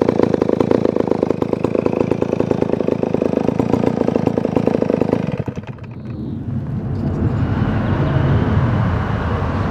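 A vintage Dolmar CA two-stroke chainsaw engine running steadily with a fast, even firing rhythm. About five and a half seconds in, its sound cuts off abruptly, and a lower engine rumble then builds up and grows louder.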